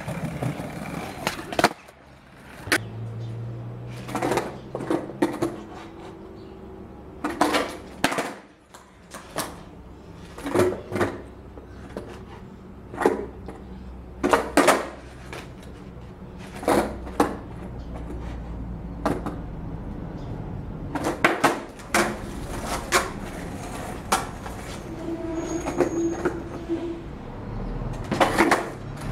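Skateboard freestyle tricks on concrete: the wooden deck clacks sharply again and again as the tail pops, the board flips and the skater lands, sometimes two clacks close together. Between tricks there is a low rumble of wheels rolling.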